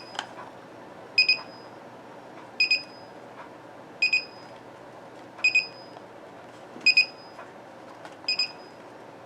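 Power supply tester sounding its alarm: a short, high double beep repeating about every second and a half. It is flagging a failed reading, a 3.3 V fault on the SATA connector of a new power supply that appears faulty out of the box.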